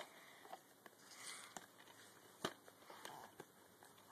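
Near silence with faint handling noise: a few soft clicks and rustles as the phone and a tape case are moved about, the clearest click about two and a half seconds in.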